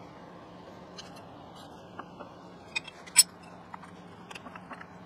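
Scattered metallic clicks and taps from a lever-operated toe jack being worked under the base of a surface grinder to level it, with one sharp knock about three seconds in and a quick run of small ticks near the end. A steady low hum runs underneath.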